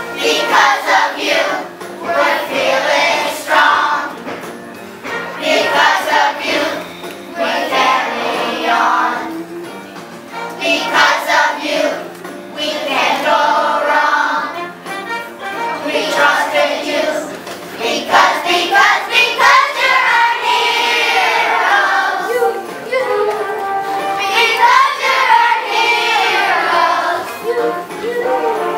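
A group of elementary-school children singing a song together in chorus, phrase after phrase with short breaths between lines.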